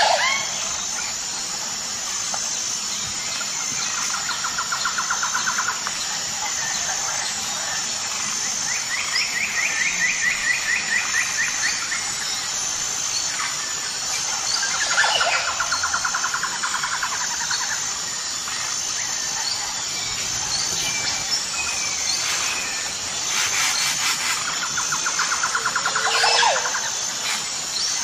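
Jungle ambience of birds calling: a rapid trill sounds four times, each about two seconds long, with a couple of sharp downward-sweeping calls. Behind them run a steady high-pitched pulsing drone and a constant hiss.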